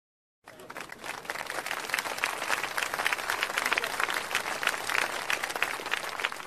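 A crowd applauding, many hands clapping, starting about half a second in and going on at an even level.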